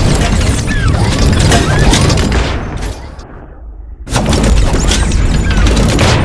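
Sound effects of an animated logo intro: deep rumbling booms and crashing, shattering hits, fading out about three seconds in. A second heavy hit comes at about four seconds and rings on to the end.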